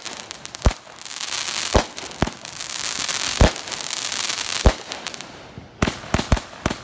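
Consumer firework going off: a hissing spray of sparks with sharp bangs about once a second. It ends with a quick string of about five cracks.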